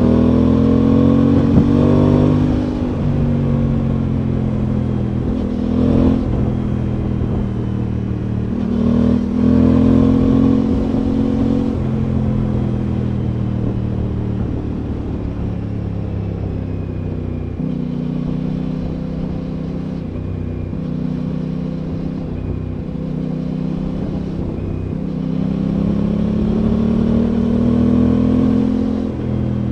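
Aprilia Tuono 660's parallel-twin engine running under way, heard from the rider's seat. Its note rises under throttle near the start, again about ten seconds in and near the end, and holds steadier in between.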